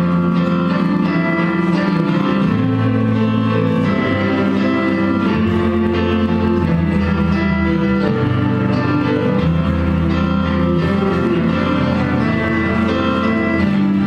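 Instrumental music with a plucked-string sound over held low notes that change every second or two.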